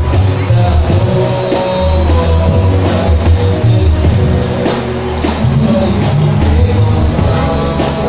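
Youth choir singing through microphones, a male lead voice with the choir, over amplified band accompaniment with a heavy bass line and a steady drum beat.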